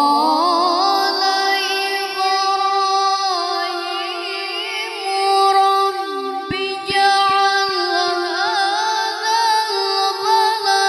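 A boy qari reciting the Quran in the melodic tilawah style into a microphone: long held notes with quick ornamental turns in one unbroken phrase. A few soft low knocks sound about halfway through.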